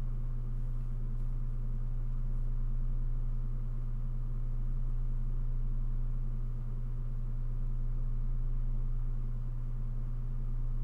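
A steady low hum that does not change, with no speech or other events over it.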